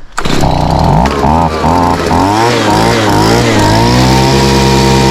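Vacuum switched on and running while it pulls suction on a buried 4-inch drain pipe. Its motor pitch wavers up and down for the first few seconds, then settles into a steady whine.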